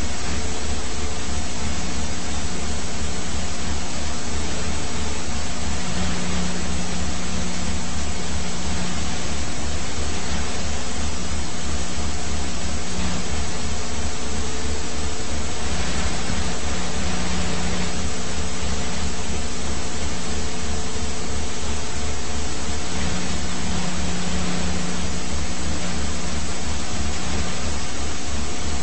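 Helicopter noise heard from inside the aircraft: a steady, loud rushing drone with a fast, even low pulse from the rotor.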